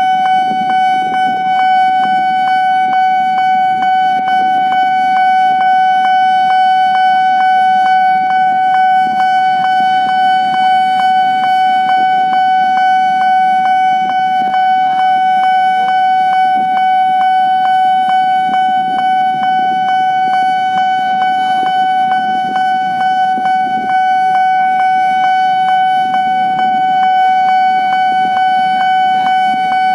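Level-crossing warning alarm sounding continuously: one steady high tone with a quick, even clicking pulse, over a low rumble of traffic or a train.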